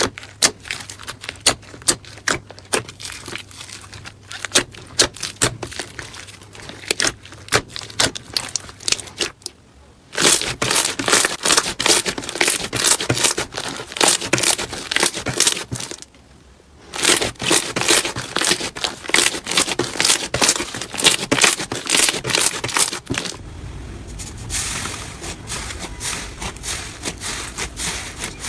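Slime being squished, poked and stretched by hand, giving rapid, irregular crackling and popping clicks. The sound breaks off briefly twice as one clip gives way to the next, and the last part is softer and more even.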